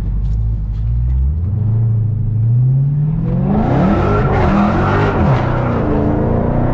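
Dodge Charger SRT Hellcat's supercharged 6.2-litre V8 accelerating hard through its mid-muffler-deleted exhaust, heard from inside the cabin. The engine note climbs in pitch over the first few seconds, then grows louder and rougher as the car picks up speed.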